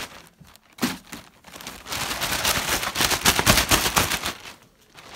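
Packaging being torn and crinkled open by hand. A short rip about a second in, then a long run of rapid crackling rips that dies away near the end.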